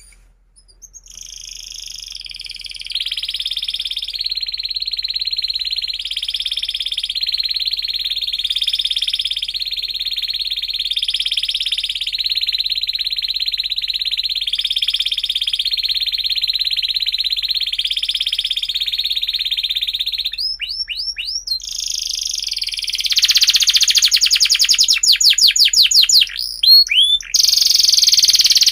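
Domestic canary singing a long, unbroken song of the kind played to teach young canaries: a rolling trill that swells higher about every second and a half. About two-thirds of the way through it breaks into quick rising chirps, then a louder, rapid rattling trill.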